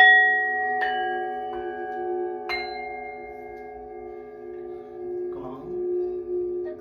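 Singing bowls ringing: four strikes in the first two and a half seconds, each a bright ringing tone, over a steady low hum from bowls sounding underneath. The tones slowly fade.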